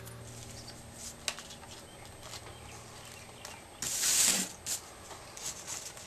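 A cardboard mixed media bird being picked up and handled on a paper-covered desk: scattered light taps and clicks, and a louder rustling scrape of card on paper about four seconds in.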